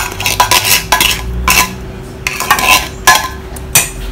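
Metal fork and tin can clinking and scraping against a stainless steel saucepan as canned baked beans are emptied in: a dozen or so irregular sharp clinks and scrapes.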